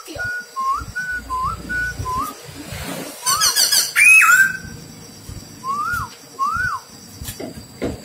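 Black-throated laughingthrush singing: a run of short, clear upswept whistles, then a louder note that rises and falls about four seconds in, and two more rising-and-falling whistles near six seconds.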